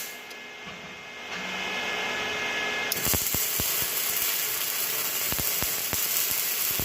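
Electric welding arc crackling. It cuts out at the start, leaving a quieter hum for about three seconds, then strikes again with a few sharp pops and crackles on steadily.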